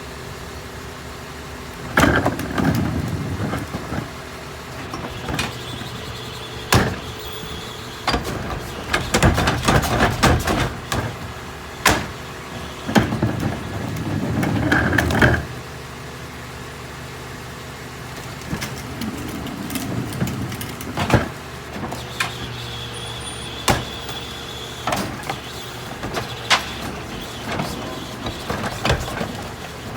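Mini New Way rear-loader garbage truck running steadily while trash is loaded and packed, with repeated sharp bangs and crashes. The bangs start about two seconds in, and the densest clattering comes from about eight to fifteen seconds in.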